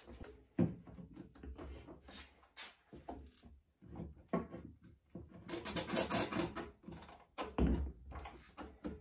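Steel bar clamps being set and tightened on a wooden board: irregular clicks, rattles and knocks of the clamp jaws, bars and hardwood blocks, with a longer rattle of a jaw sliding along its bar about halfway through.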